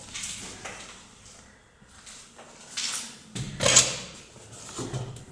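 A door being handled and pushed open: a few short scrapes and knocks, the loudest about three and a half seconds in.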